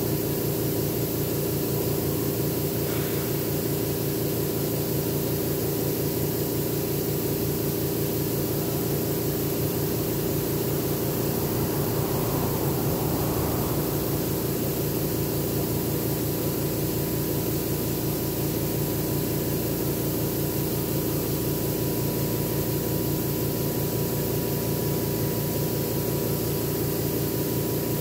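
Air compressor running steadily, a continuous hum with a rapid low pulse, under a constant hiss.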